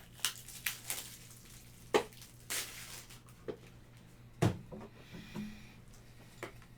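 Trading cards and plastic card holders being handled on a table: scattered sharp clicks and taps, with a short rustling swish about two and a half seconds in.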